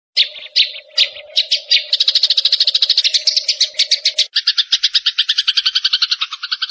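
Recorded songbird song: a rapid, high chattering trill of about ten notes a second that starts abruptly out of silence. A low steady hum runs beneath it until about two-thirds through, when the trill shifts to a lower, two-toned pattern.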